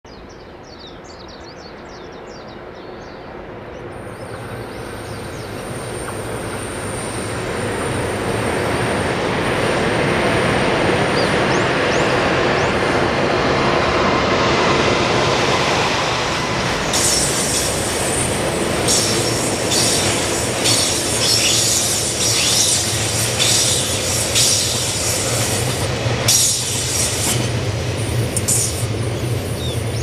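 An EH200 electric locomotive hauling a freight train of oil tank wagons approaches and passes, growing louder over the first ten seconds with a steady low hum. From about halfway through, the wagons roll by with a rapid clatter of wheels and high squealing.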